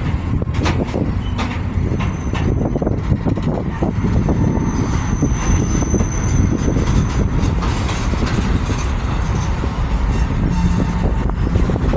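CSX freight train's cars rolling slowly past as it brakes toward a stop: a steady low rumble with scattered clanks, and a thin high wheel squeal from about four to seven and a half seconds in.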